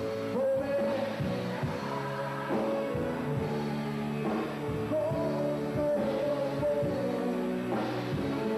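Rock band playing live, a lead melody of long held notes over the drums and bass.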